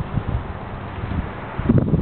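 Wind buffeting the camera's microphone: an uneven low rumble in gusts, louder near the end.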